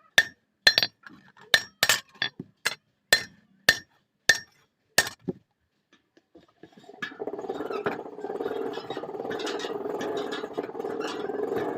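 Blacksmith's hammer striking hot steel on the anvil while forging a katari blade: about ten ringing blows, roughly two a second, that stop about five seconds in. From about seven seconds a steady rushing noise starts and keeps going.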